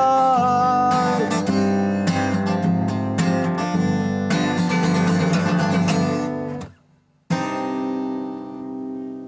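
Acoustic guitar strummed as the outro of a sung song, over the last held sung note fading in the first second. The strumming stops abruptly; after a brief gap a final chord rings and slowly fades.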